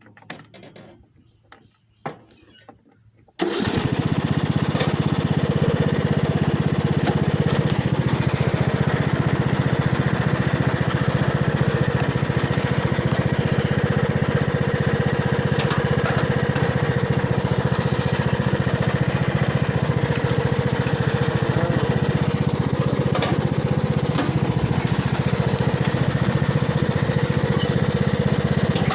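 Riding lawnmower engine. It comes in suddenly about three and a half seconds in, after a few faint clicks, and then runs loud and steady.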